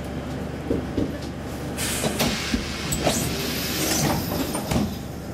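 Sliding passenger doors of a Saltsjöbanan C10/C11 railcar closing, with a loud hiss for a second or two and several knocks as they shut, over the steady low hum of the standing train.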